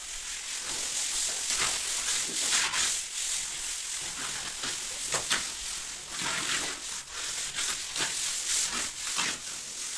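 Wooden straightedge (runda) scraped over fresh cement plaster on a wall in repeated irregular strokes, levelling off the wet mortar.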